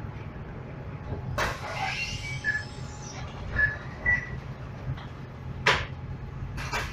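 Inside a moving Volvo city bus with a Neobus Mega BRT body: a steady low engine drone with sharp rattles and clunks from the body and fittings, and a few brief high squeaks in the middle.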